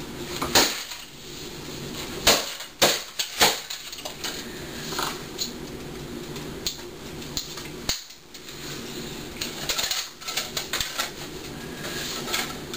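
A hammer striking a portable CD player: five sharp impacts in the first four seconds, then lighter plastic clicks and rattles as the broken pieces are handled, over a steady low hum.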